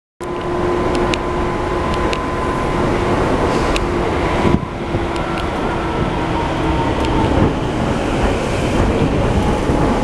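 Running noise inside a Tobu 9000 series commuter train car in motion: a steady rumble of wheels on rail with a faint steady hum, and a few sharp clicks.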